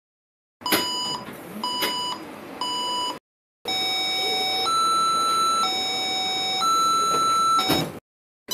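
Taipei Metro electronic signal tones. First come three short, evenly spaced beeps, then after a brief gap a two-note tone alternating low and high, each note held about a second, four notes in all, ending with a click.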